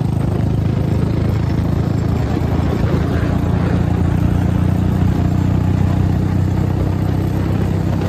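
Royal Enfield Bullet's single-cylinder engine running steadily under throttle at highway speed.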